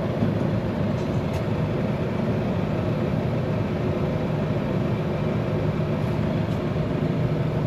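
Steady drone of a vehicle and a running ULV mosquito fogger: several level engine tones over a rushing blower noise, unchanged throughout.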